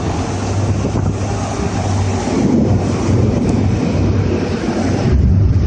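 Heavy diesel engine of a container handler running with a deep, steady drone, under wind noise buffeting the microphone. Near the end the hiss eases and the engine drone grows slightly louder.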